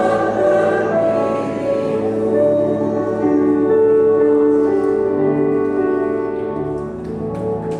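Senior church choir singing a slow hymn in long held chords, the song drawing to its close. A few sharp clicks come near the end.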